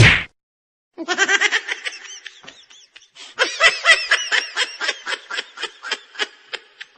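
Laughter sound effects: a whack ends right at the start, then after a second of silence comes a run of rapid, high-pitched laughing, and after a short break about three seconds in, a second, longer run of laughing.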